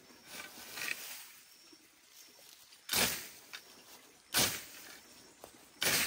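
Three sharp, noisy strikes about a second and a half apart.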